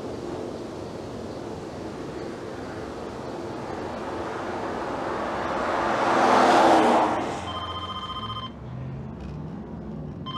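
Steady road noise inside a moving car, swelling to a loud whoosh about six seconds in. Then a mobile phone's electronic ringtone sounds twice, each ring about a second long.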